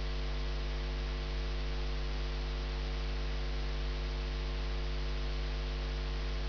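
Steady electrical mains hum with a faint hiss underneath.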